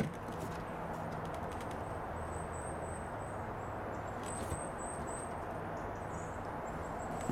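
Outdoor ambience: a steady background rush, with a small bird singing strings of short, high chirps from about two seconds in, and a few faint clicks.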